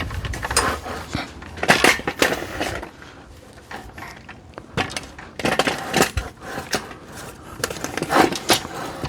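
Irregular knocks and clanks as a mitre saw fitted with mounting brackets is handled and set onto the bars of a Parkside PUG 1600 B2 mitre saw stand, in clusters with a quieter stretch in the middle.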